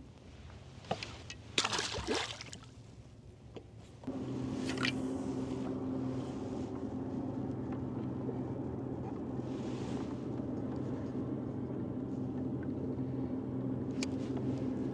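A few brief rustles and knocks, then a boat motor starts suddenly about four seconds in and runs with a steady, even hum.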